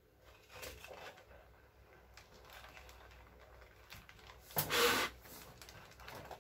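Hands rubbing and smoothing a plastic polarizer film onto an LCD panel's glass: soft rustling, with one louder swish lasting about half a second some four and a half seconds in.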